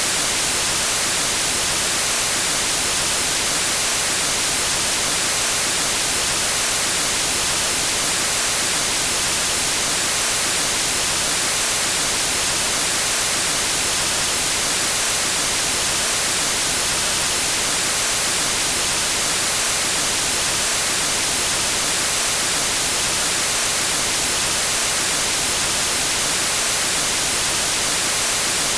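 Steady white noise, the static hiss of an untuned TV, even and unchanging, with its strength weighted toward the high end.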